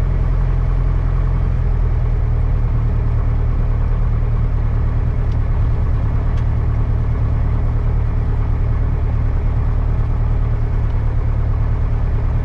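Piper Cherokee 140's four-cylinder Lycoming engine and propeller droning steadily in cruise, heard inside the cabin.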